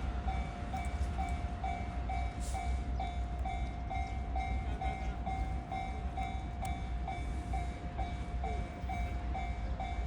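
Japanese railway level-crossing warning bell ringing: an electronic ding repeated evenly, nearly three times a second. Under it runs a steady low rumble.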